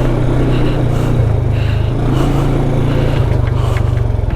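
Motorcycle engine running steadily at low revs on a dirt trail, its firing pulses plainly audible, with a few scattered knocks.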